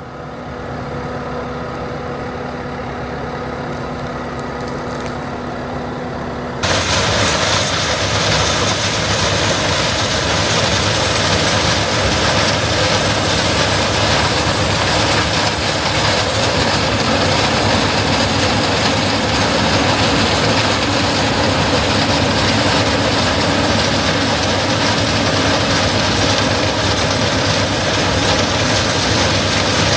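Diesel harvest machinery running with a steady engine hum. About six or seven seconds in it jumps abruptly to a louder, noisier run that holds steady.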